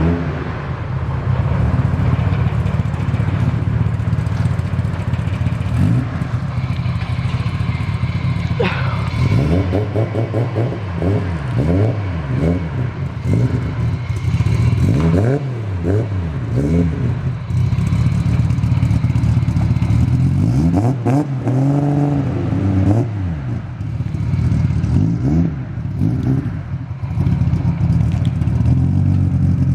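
Freshly rebuilt Toyota 1JZ inline-six engine in a JZX100 Chaser, on its run-in tune, running under way. Its pitch climbs and falls repeatedly as it revs up through the gears and eases off, most clearly about ten seconds in and again past twenty seconds.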